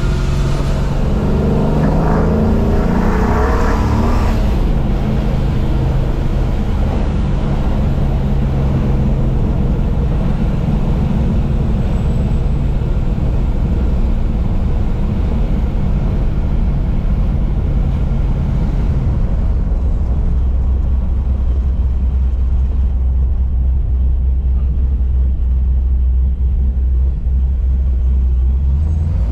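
Classic muscle car's custom dual exhaust on a drive: the engine revs up in a rising pull in the first few seconds, holds a steady cruise, then settles into a lower, deeper drone about two-thirds of the way through.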